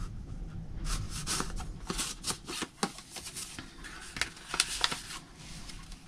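Paper rustling and sliding: a handmade paper journaling card and envelope being handled and slipped into a paper pocket of a junk journal, in a run of short, irregular crisp rustles.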